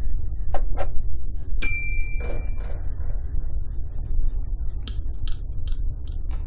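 Handling noise: a few clicks, one short ringing ping, then a quick run of sharp clinks, over a steady low rumble.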